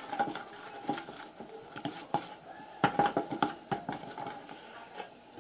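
A chopstick stirring glue and laundry detergent slime in a plastic bowl, with irregular clicks and taps against the bowl, coming thickest about three seconds in.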